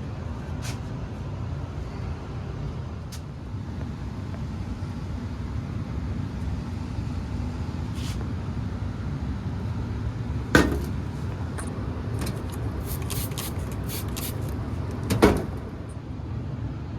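Payne gas furnace running with a steady low rumble from its burners and blower. Two sharp knocks cut through it, about ten seconds in and again about five seconds later, with a few light clicks.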